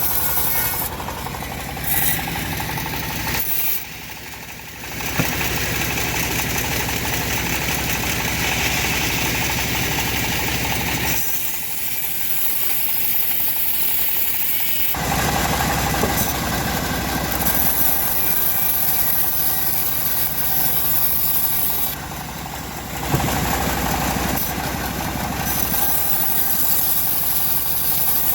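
Engine of a homemade bandsaw sawmill running steadily as the mill saws lamtoro wood. The sound changes abruptly in level a few times.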